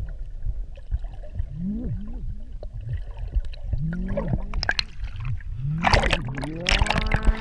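Muffled underwater gurgling and bubbling as a camera moves through the water, with splashing about six and seven seconds in as it breaks the surface. Slow sliding, wailing tones run over it, rising and falling in pitch.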